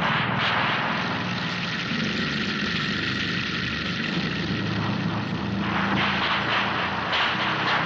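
Chainsaw engine running, with a steady higher whine from about a second in until past the halfway mark.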